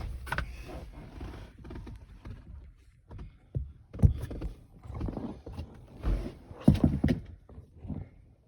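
Irregular knocks, clunks and rattles of hands and tools working parts loose on the inside of a vehicle's rear lift door, the loudest knocks about four seconds in and again near seven seconds.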